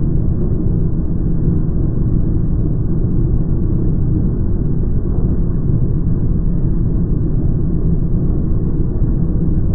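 Drilling rig boring into the ground, its drill rod turning steadily in the hole: a loud, unbroken low rumble. The footage is slowed down.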